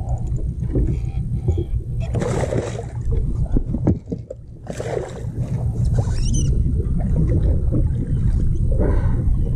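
Water splashing and sloshing beside a boat as a hooked bass is played to the side and landed. Splashes come about two seconds in, about five seconds in and near the end, over a steady low rumble.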